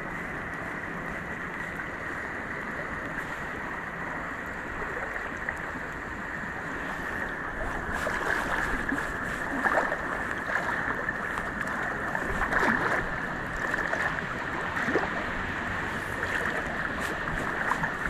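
Steady rushing of river water, with scattered light clicks and knocks in the second half.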